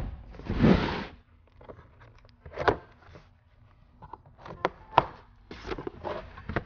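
Cardboard box holding a heavy steel beadlock wheel set down on a wooden workbench with a thump and slid along it with a scrape, then several sharp knocks and cardboard rustles as the box is handled and its flaps are pulled open.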